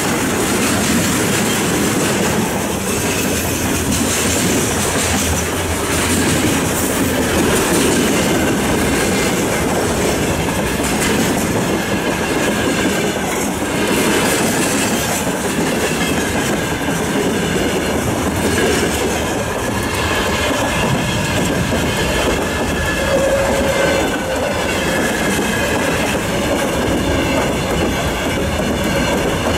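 Freight train of tank cars and open-top gondola cars rolling past close by: a steady loud rumble of steel wheels on rail with irregular clatter. From about twelve seconds in, a faint wavering squeal from the wheels rides on top.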